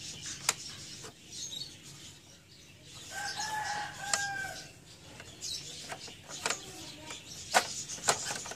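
Light clicks and taps of metal and plastic parts as the carriage (CR) shaft of an Epson T60 printer is worked into its frame. A rooster crows once in the background about three seconds in, with small birds chirping faintly.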